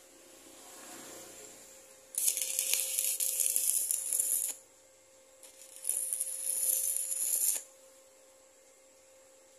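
Two bursts of steady high hissing spray, the first about two seconds long and the second a little shorter after a pause.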